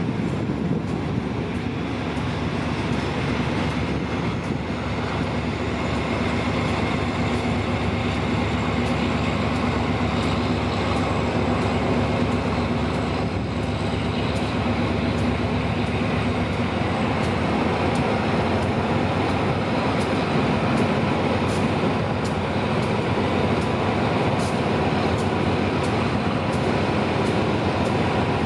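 Diesel-hauled passenger train rolling past at station speed, a steady rumble with a low engine hum. In the second half its wheels click regularly over the rail joints, about twice a second.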